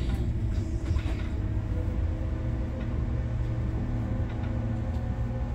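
Bus engine running at low speed, a steady low hum heard from inside the cab, as the bus slows behind queued cars.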